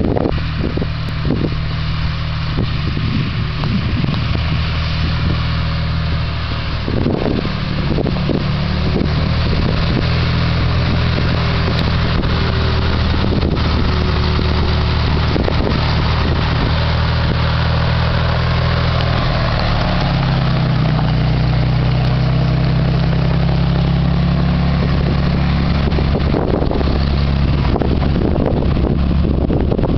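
Engine of a 1962 International Harvester/Seagrave fire-engine pumper running steadily as the truck drives, with its note stepping up to a higher pitch about twenty seconds in.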